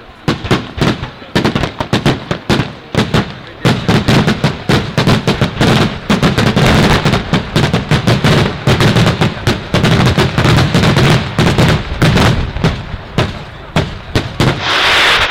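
Daytime fireworks: a fast barrage of firecracker bangs, loud and sharp. It thickens into an almost unbroken roll of reports from about four seconds in, with a denser burst near the end.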